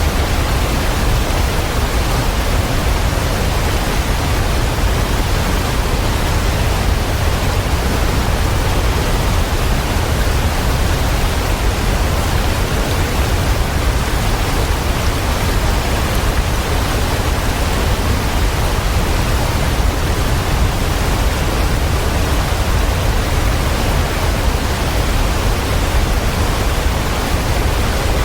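Waterfall: a steady, unbroken rush of falling water, heaviest in the low end, with no changes or separate events.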